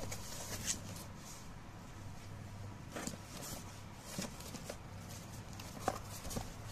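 A cardboard shipping box handled and turned over by hand: scattered soft rustles, scrapes and taps of the cardboard, over a steady low hum.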